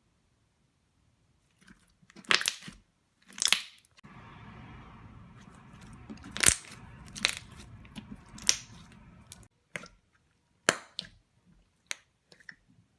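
Air bubbles in slime popping as the slime is pressed and stretched: about eight sharp pops at uneven intervals, with a soft squishing noise under them through the middle few seconds.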